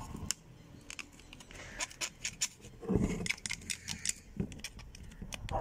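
Flat metal scraper blade scraping and chipping caked dried mud off a revolver: irregular short scrapes and clicks, with a louder, longer scrape about three seconds in.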